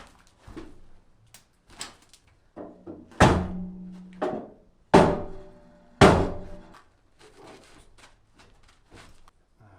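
Steel crowbar knocking and levering against a metal fireplace firebox to shift it sideways: a run of small knocks, with three loud clanks that ring briefly, about three, five and six seconds in.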